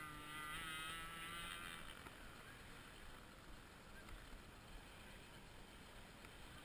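Petrol-engined radio-controlled model boat running at speed at a distance, a high wavering engine whine that fades away about two seconds in. After it, only a faint steady wash of water.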